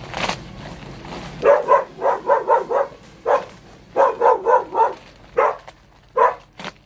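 A dog barking: two quick runs of short barks, about four a second, then a few single barks near the end.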